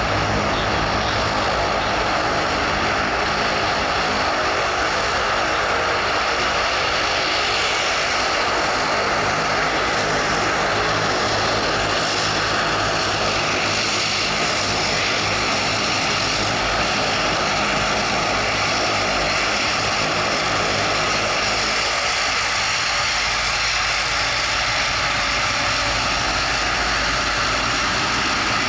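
Twin Pratt & Whitney PW123 turboprop engines of a de Havilland Canada Dash 8 Q300 running with a steady propeller drone.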